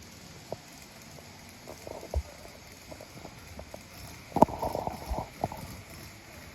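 Old-livery Hokuto train running, its motor making an abnormal noise: irregular clicks and knocks, with a louder burst of rattling about four and a half seconds in.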